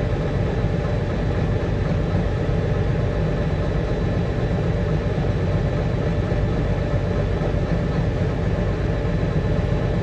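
Farm tractor's engine running steadily, heard from inside the cab as a low, even drone.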